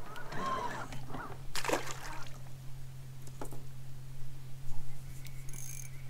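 Steady low hum from a bass boat's electric motor, with a brief louder noise about two seconds in.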